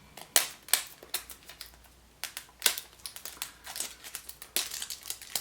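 Wrapper of a Chupa Chups surprise egg being unwrapped by hand: quick, irregular crinkling and crackling, busiest near the end.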